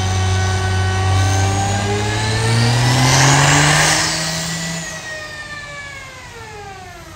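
A vehicle engine revs up, its pitch climbing steadily with a growing rush of noise for about three seconds, then its pitch falls and the sound fades away.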